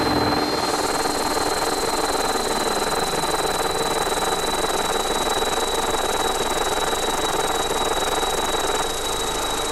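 Noisy ambient drone from an effects-pedal feedback loop built around an EarthQuaker Devices Data Corrupter with reverb and delay pedals: a dense, hissy wash with a steady high tone over layered held tones. It drops slightly in level near the end.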